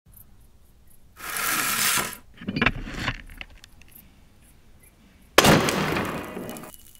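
An old wooden pulley block with a forged iron strap is set down hard on a wooden tabletop about five and a half seconds in: a sudden clunk with a rattle that trails off over about a second. Before it, a burst of rustling and a few clattering knocks as it is handled.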